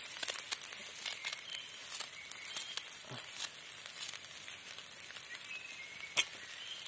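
A knife cutting fresh Asian coriander (culantro) by hand over a wok, with soft crinkly cuts and small ticks through the leaves and stems, and one sharp click about six seconds in.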